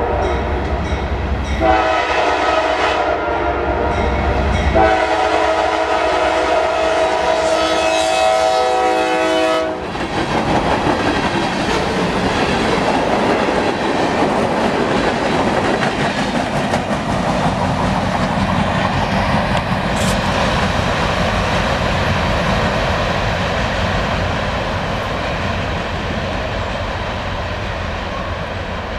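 Norfolk Southern freight train's air horn sounding in long blasts for about the first ten seconds. After that, the steady rumble and wheel clatter of freight cars rolling past, slowly fading as the train moves away.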